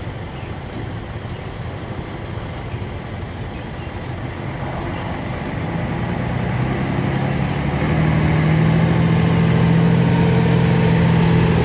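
Heavy tractor-trailer truck's diesel engine drawing near at slow speed while hauling a railcar on a low-loader trailer. The low engine drone grows louder from about six seconds in and then holds a steady note.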